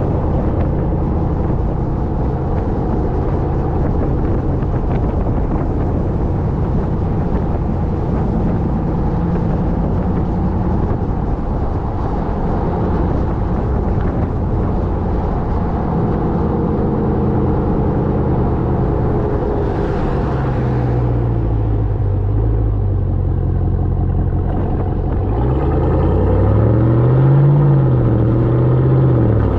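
Ram TRX pickup's supercharged 6.2-litre V8 and exhaust running on the move, a steady drone over road and wind noise. The engine pitch dips about two-thirds of the way through, then rises and falls again near the end, where it is loudest.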